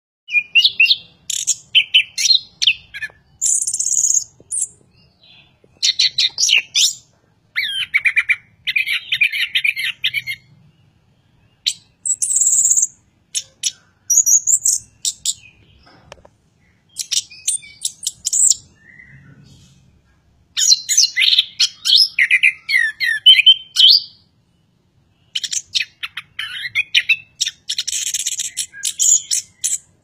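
Chestnut-capped thrush singing a loud, varied song: phrases of rapid, jumbled high notes and trills, separated by short pauses of a second or so.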